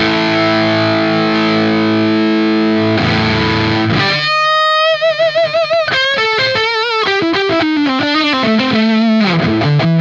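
Electric guitar played through a TC Electronic Vintage Distortion, a 1990s RAT-circuit distortion pedal. A distorted chord rings out, a second chord comes about three seconds in, then a held single note with wide vibrato leads into a descending run of single notes.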